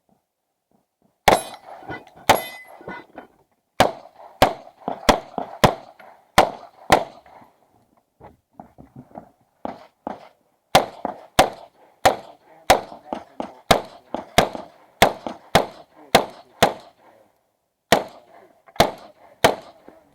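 Uzi Pro 9 mm pistol fired shot by shot through an IPSC course of fire, about twenty shots in all, mostly around half a second to a second apart. There is a pause of about four seconds in the middle.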